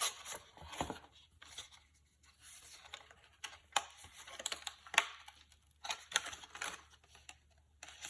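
Screen protector packaging being opened by hand: irregular rustling, tearing and sharp clicks of cardboard and plastic.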